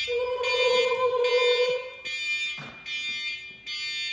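Electronic beeper sounding a steady repeating beep, a little more than one a second, from the air cannon's pressurizing system as it is armed and builds pressure. A lower steady tone sounds over the beeps for about two seconds near the start, and a short falling sound follows a little later.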